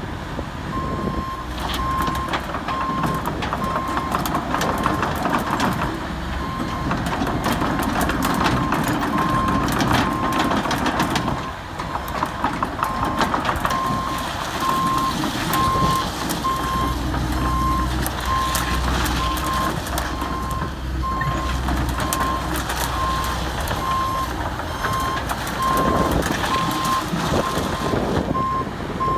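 Komatsu PC78US-8 compact excavator moving on its tracks: a travel alarm beeps steadily and repeatedly over the diesel engine's running, with frequent clanks and knocks from the machine.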